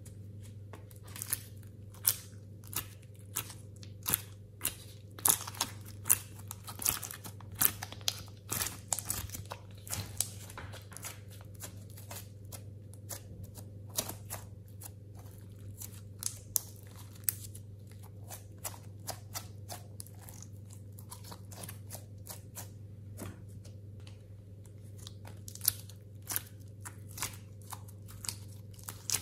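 Soft coloured clay pressed out of a flexing plastic mold tray and squished by hand. The sound is a run of sharp crackling clicks and sticky crunches, densest in the first third and again near the end, over a steady low hum.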